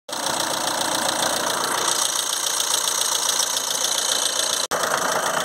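Volkswagen Tiguan's diesel engine idling steadily, cutting out briefly about four and a half seconds in.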